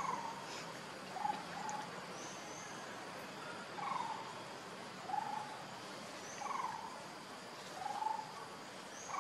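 Short animal call repeated about once every second and a quarter, with fainter high chirps every few seconds, over a steady background hiss.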